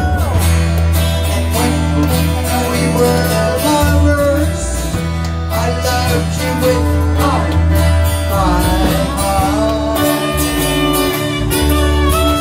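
Live rock band playing: a woman sings lead over electric and acoustic guitars with a steady bass line.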